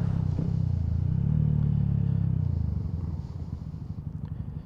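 Single-cylinder Yamaha MT-125 motorcycle engine through a Scorpion aftermarket exhaust, running under steady throttle, then easing off about two and a half seconds in and settling to a slower, evenly pulsing idle.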